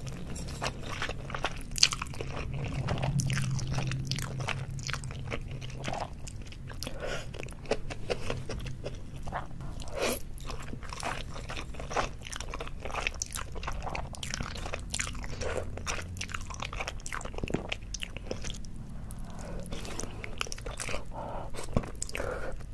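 Close-miked ASMR eating sounds of a person slurping and chewing saucy black bean noodles: wet slurps and sticky chewing with many small irregular mouth clicks, over a faint steady low hum.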